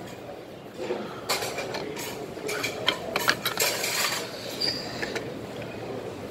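Crockery and cutlery clinking and knocking: a string of short, sharp clinks, thickest in the middle, over a steady background hum.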